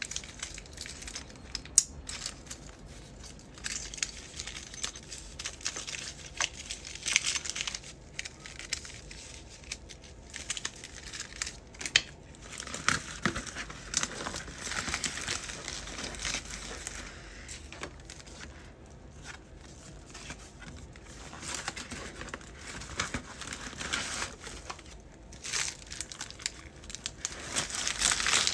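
Packing an order by hand: plastic packaging and a bubble mailer crinkling and rustling in irregular bursts, with a couple of sharp clicks. The crinkling is loudest near the end, as a shiny plastic package is pushed into the mailer.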